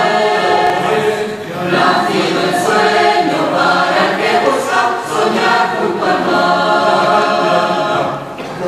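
Mixed choir of women's and men's voices singing a habanera a cappella in several parts, in phrases with short breaths between them.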